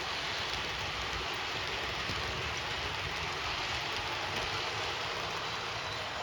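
Model train running on the layout track: a steady rolling noise of wheels and motor.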